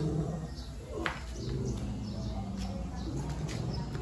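Birds chirping, with low cooing like a dove, and a single sharp click about a second in.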